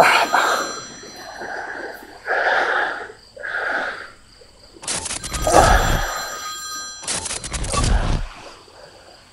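Old-fashioned telephone bell ringing in bursts of about a second, with two rings close together in the second half. Softer, muffled sounds come between the rings.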